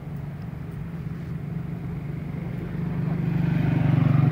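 Motorbike engine running with a steady low hum that grows louder over the last second or so and peaks near the end as it passes close by.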